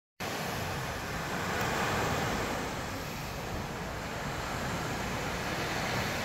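Small ocean waves breaking and washing up the beach: a steady rushing hiss that swells gently and eases.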